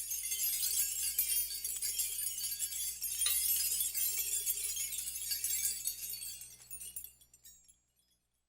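Jingling hand percussion: a dense, continuous shimmer of many small clinking strikes, mostly high-pitched, dying away after about seven seconds.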